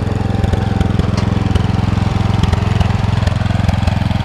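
John Deere 112 garden tractor's engine running steadily as it drives along, with a rapid, even beat.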